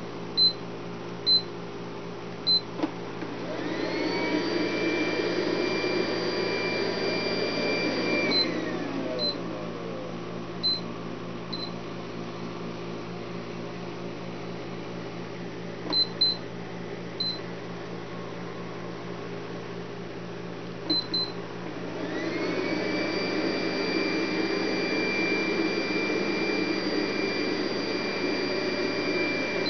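Infinuvo QQ-2 Cleanmate robot vacuum giving short high beeps, singly and in pairs, and twice running its motors: each run whines up to a steady pitch with a rushing sound beneath it, holds for several seconds, then winds down.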